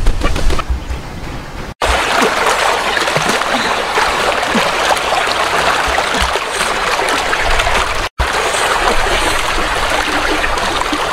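Steady rush of running water, a stream or pouring flow, with fine splashy crackle through it. It cuts out abruptly for an instant twice.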